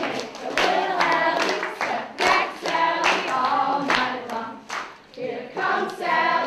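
A group of people singing together with steady hand clapping, about two claps a second.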